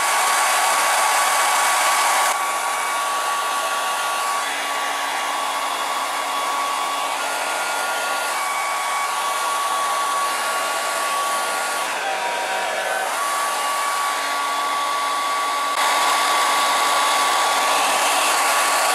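Handheld hair dryer blowing steadily with a thin whine, warming a sticker on a motorcycle fuel tank to soften its glue. The whine dips briefly in pitch about two-thirds of the way through, and the dryer is a little louder at the start and near the end, stopping right at the end.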